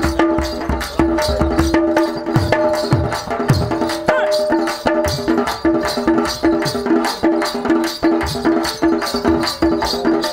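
Folk instrumental interlude led by drums: fast, regular drum strokes, about four a second, with rattling percussion and deep drum thuds over a held, pulsing pitched note.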